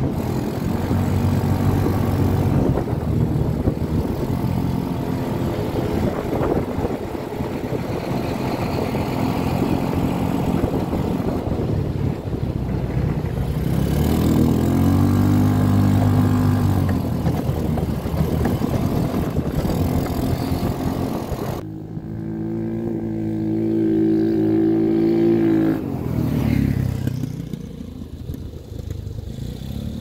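The engine of a Tao Tao Arrow 200 running as it is driven through snow, its pitch rising and falling with the throttle. About two-thirds of the way through it holds one steady pitch for a few seconds, then drops and picks up again.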